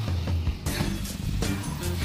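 Background music with a steady low bass line.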